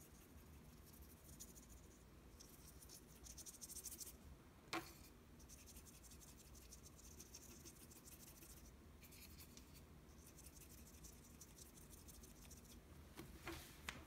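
Faint scratchy swishing of a small watercolor brush stroking paper, coming and going, with a single sharp little click about five seconds in.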